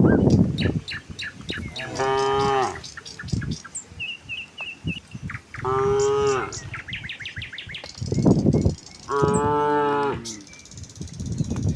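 Cattle mooing: three long, even moos of about a second each, spaced a few seconds apart, with rougher, lower calls in between.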